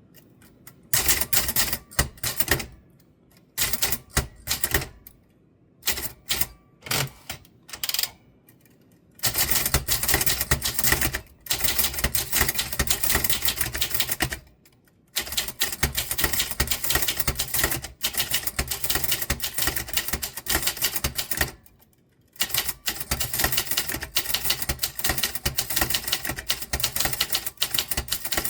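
Typewriter keys being struck: a few short bursts of typing at first, then long runs of quick, dense clacking with brief pauses between them.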